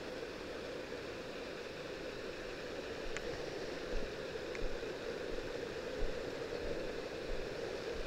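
Steady rushing and splashing of a small waterfall spilling down a mossy rock face, with a few faint low bumps in the middle.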